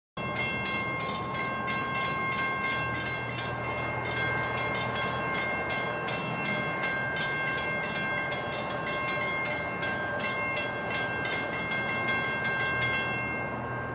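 Railroad grade-crossing warning bell ringing in rapid, even strokes, about three a second, as a train approaches; it stops abruptly near the end.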